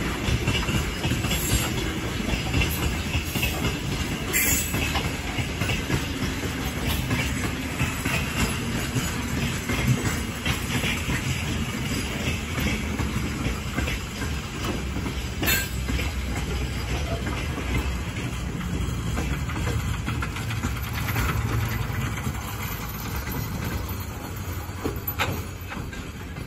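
Freight train's gondola wagons rolling past, wheels clattering over the rail joints with a steady rumble and a couple of sharp clanks. The sound eases slightly near the end.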